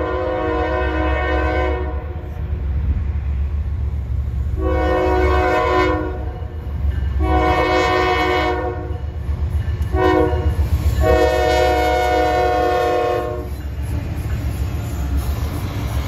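CSX freight train's diesel locomotive horn sounding for the grade crossing as it approaches. One blast ends about two seconds in, followed by two long blasts, a short one and a final long blast. Under the horn a deep diesel rumble grows as the locomotive reaches the crossing near the end.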